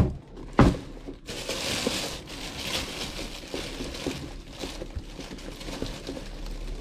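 Thin plastic bag crinkling and rustling as a bike helmet wrapped in it is lifted out of its box, after two sharp knocks in the first second.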